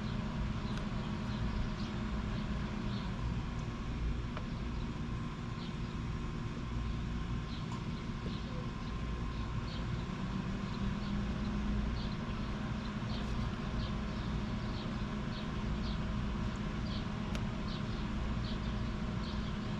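A steady low engine hum, like a vehicle idling. Short high chirps come in about once or twice a second, mostly in the second half.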